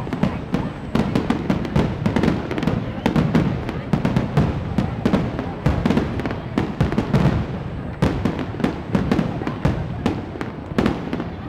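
Fireworks going off in quick succession, a dense run of bangs and crackling pops with no break, over fairground ride music.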